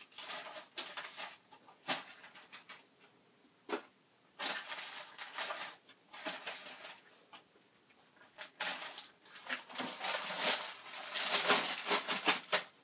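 A plastic bag crinkling and rustling as chicken wings are shaken in dry batter mix inside it, in several uneven bouts with short pauses between, the longest and loudest run near the end.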